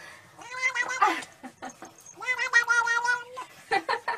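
Tabby cat yowling with its mouth wide open: two drawn-out calls, the second about a second long, with a few short sharp noises between them.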